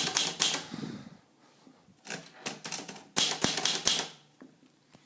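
Underwood 319 manual typewriter clacking in three quick runs of sharp strikes with short pauses between, the last run the longest and densest.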